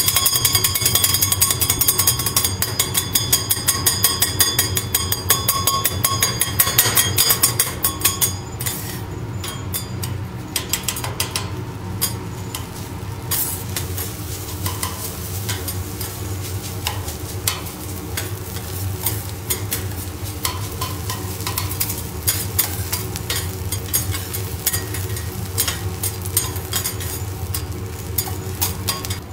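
Two steel spatulas rapidly chopping and tapping fried rice on a hot teppanyaki griddle: a fast metallic clatter with ringing, easing after about eight seconds into slower scrapes and taps as the rice is turned and gathered, over a sizzle.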